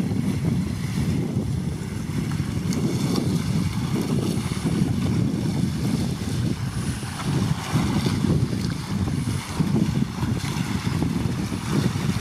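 Wind buffeting the microphone: a steady low rumble that gusts up and down.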